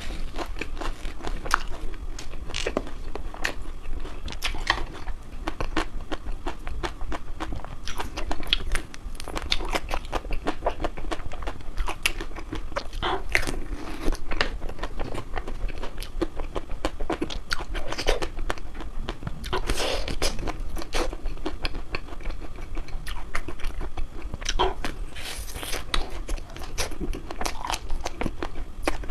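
Close-up chewing and biting of a crispy, dry chocolate ice cream, with many sharp, crackly crunches one after another.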